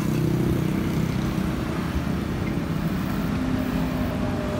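Road traffic: the engines of passing vehicles running as a steady low rumble. A steadier engine note comes in near the end.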